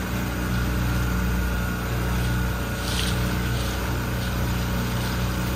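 Small 9.9 hp outboard motor running steadily at low throttle, pushing a 20-foot sailboat, with the rush of water from the wake.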